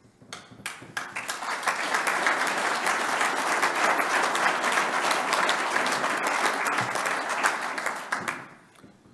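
Audience applauding: a few scattered claps at first, swelling within about a second into sustained applause that dies away near the end.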